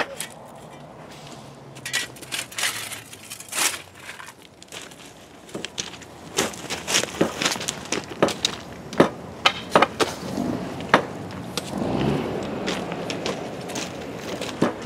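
Irregular sharp knocks and cracks from sledgehammers breaking away the sand mold around a freshly poured thermite rail weld, with many short strikes through the middle and later part.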